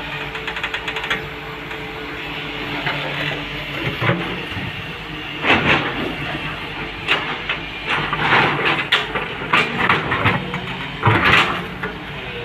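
Excavator's diesel engine running steadily, with a run of quick clicks in the first second and several loud bursts of clanking and scraping from about five seconds in.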